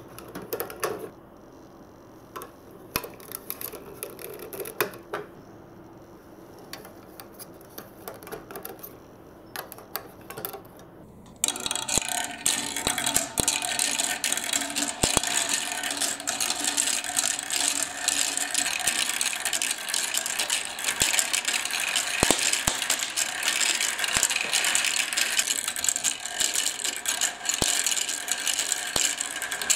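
Plastic marble run parts clicking and knocking as they are fitted together by hand. About eleven seconds in, marbles start rolling down the plastic tracks, spirals and funnel, making a loud, continuous clattering rattle.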